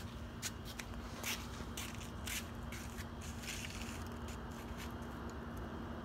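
Faint footsteps and scuffs of foam clogs on a dirt yard, with small handling clicks scattered through it, over a faint steady hum.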